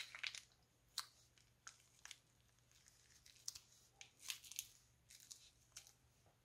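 Faint, irregular crinkles and crackles of a plastic piping bag squeezed in the hand as it pipes out slime.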